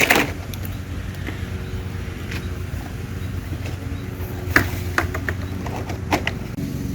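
A motor or engine running steadily with a low hum, with a few sharp knocks, one at the start and several spaced a fraction of a second apart about four and a half to six seconds in.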